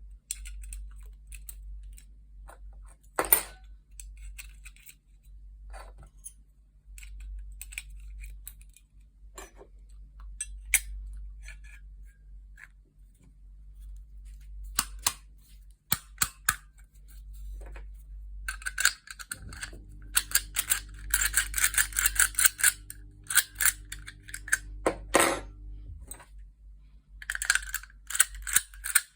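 Metal parts of an old Godrej cabinet lock clicking, tapping and rattling as they are handled, with scattered single clicks, then a dense run of rapid clicking and rattling for several seconds past the middle over a faint low hum.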